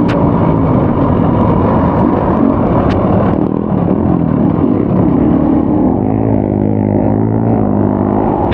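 Off-road motorcycle engine running under changing throttle while riding a trail, its pitch repeatedly rising and falling.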